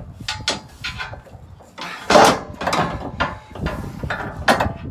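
Zinc-plated steel gas tank skid plate knocking and scraping against the Jeep's frame as it is held up by hand and the stock bolts are threaded in: a run of sharp metal clanks and rustling scrapes, loudest about two seconds in.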